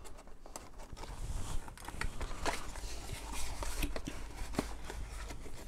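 Hands handling and opening a small cardboard box: scattered light taps, scrapes and rustles of cardboard.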